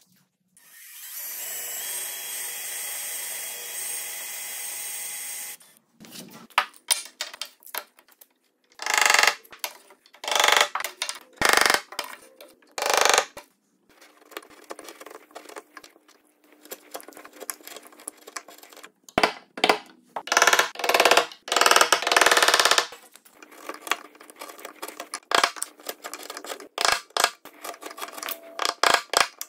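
A cordless drill with a Diablo Forstner bit boring steadily into wood for about five seconds, then stopping. After that, a wood chisel pared by hand scrapes out the waste in short, uneven strokes, some of them loud.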